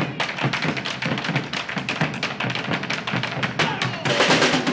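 Bombos legüeros beaten fast with sticks on the skin and the wooden rim, many strokes a second, over a drum kit and the stamping of boots on a hard floor. About four seconds in the playing thickens into a dense roll.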